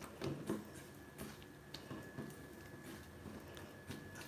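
A hand squishing and kneading soft wheat-flour batter in a steel bowl, making faint sticky squelches and light scattered clicks.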